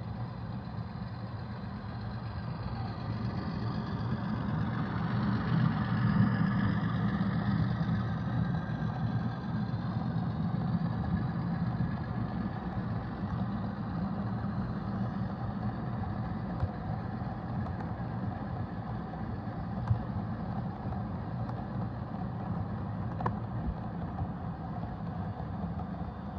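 HO scale model train running past on its track, a steady hum that grows louder to a peak about six seconds in as the locomotive passes, then carries on more evenly as the loaded hopper cars roll by, with an occasional click.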